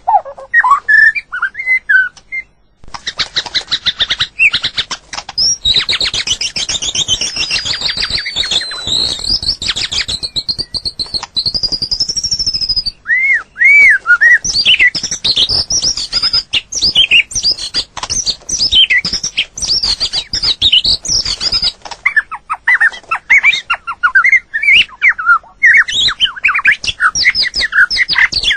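White-rumped shama singing a varied run of rising and falling whistled phrases, dense with rapid scratchy notes in the first half.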